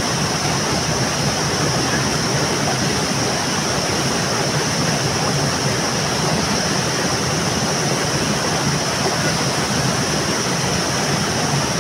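Stream water rushing steadily, a constant even noise with no breaks.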